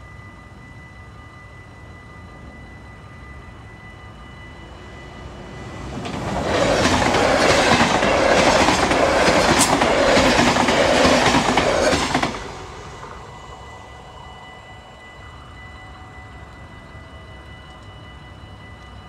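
NS double-deck electric passenger train passing the crossing. Its rush builds from about six seconds in, holds for about six seconds with the wheels clattering over the rails, then stops sharply as the last car clears. A thin steady ringing tone, the crossing's warning bell, runs underneath.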